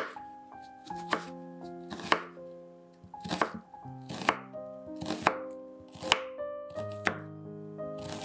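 Chef's knife slicing an onion on a wooden cutting board: sharp knocks of the blade against the board about once a second, sometimes two in quick succession, over background music.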